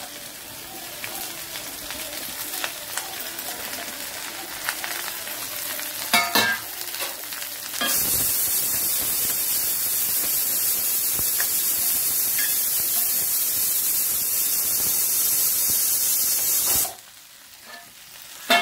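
Chopped okra frying in hot oil in a kadai while it is added and stirred with a spoon: a lighter sizzle with scraping and a clatter of the spoon about six seconds in, then a loud, steady sizzle for about nine seconds that cuts off suddenly near the end.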